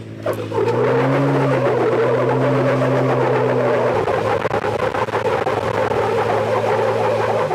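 Jeep Wrangler engine pulling hard under load up a steep rock ledge, a loud steady drone whose pitch rises a little about a second in. It cuts off abruptly near the end.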